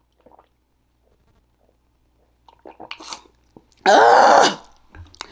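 Faint mouth and breath noises, then, about four seconds in, a woman's loud wordless vocal cry with her mouth wide open, lasting about half a second.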